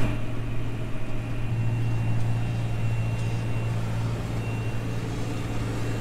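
Tractor engine running steadily under load while pulling a seed drill, heard from inside the cab as a low even hum, with a faint thin high whine.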